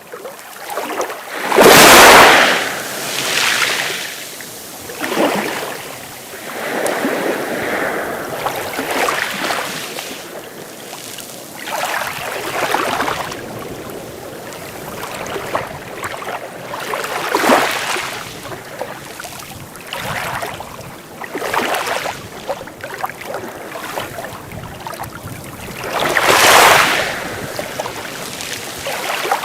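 Sea waves breaking and washing ashore, one surge after another every few seconds. The biggest crashes come about two seconds in and again near the end.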